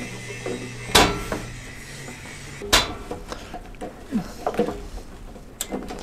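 Clunks of a motorcycle fuel tank being lowered onto the frame: two sharp knocks, about one second and nearly three seconds in, then several lighter taps and clicks.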